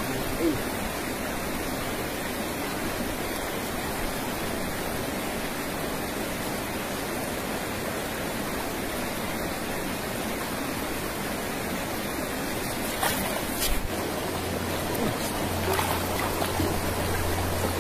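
River water running over stones in a shallow rocky stretch: a steady, even rushing wash. A few light knocks come about thirteen seconds in, and a low hum joins in near the end.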